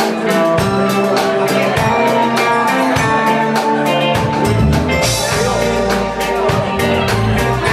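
Live folk-rock band playing an instrumental passage: electric guitar and drum kit over a steady beat, with a cymbal crash about five seconds in and a heavier bass line after it.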